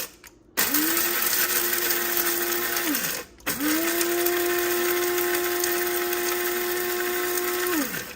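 Capresso Cool Grind electric blade coffee grinder grinding coffee beans in two runs, one of about two and a half seconds and a longer one of about four and a half. At each run the motor whine rises as it spins up, then falls away as it is released.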